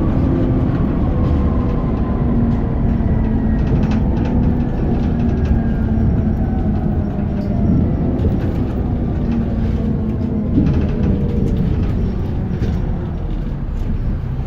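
Alexander Dennis Enviro400 double-decker bus heard from inside while on the move: a steady low drivetrain rumble with a faint whine that slowly falls in pitch, and a few light rattles and knocks.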